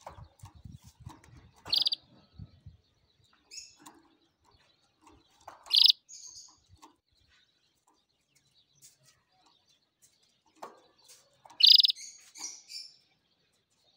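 Canary giving short, sharp chirps: three loud ones several seconds apart, about 2, 6 and 12 seconds in, each followed by a few softer notes. A low rumble runs under the first few seconds.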